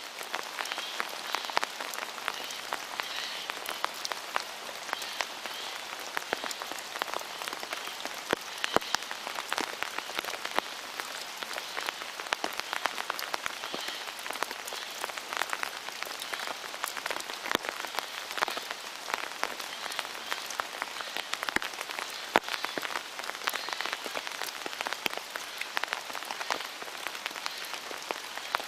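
Steady rain, with a dense patter of individual drops ticking on an umbrella canopy.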